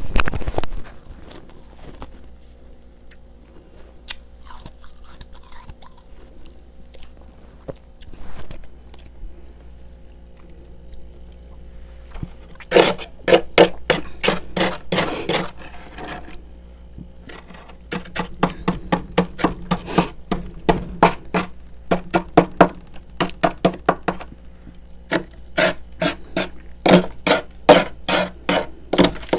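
Freezer frost crunching in quick, sharp strokes, about two or three a second, in three runs starting roughly halfway through. Before that there are only scattered small scrapes and clicks.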